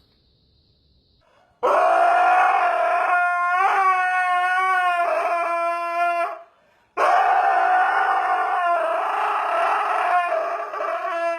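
Husky puppy howling in two long, wavering howls, the first about a second and a half in and the second about seven seconds in.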